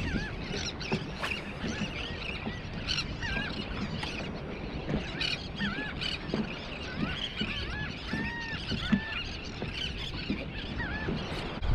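A flock of birds calling: many short, squeaky calls that rise and fall, overlapping one another, with a few sharp clicks in between.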